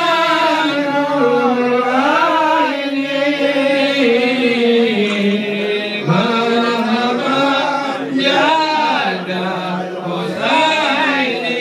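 Several voices chanting together, a slow melody with long held notes that bend up and down.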